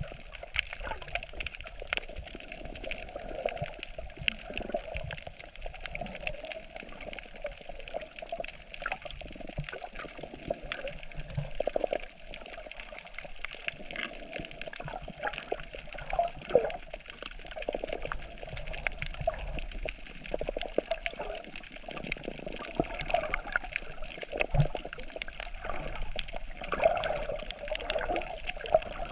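Sea water sloshing and gurgling around the camera's microphone, with frequent small clicks and crackles, as heard from a camera filming underwater on a reef.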